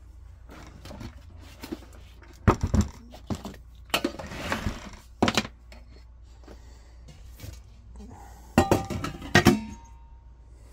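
An Instant Pot Duo pressure cooker being handled on a workbench: its housing knocks and thunks as it is turned upright and set down. Near the end there is a quick run of clinks and knocks as the stainless steel inner pot is lowered into it.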